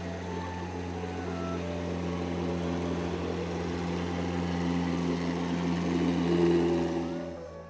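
Engine of a long wooden river passenger boat running at cruising speed, a steady low drone with water rushing along the hull, growing louder as the boat passes close below.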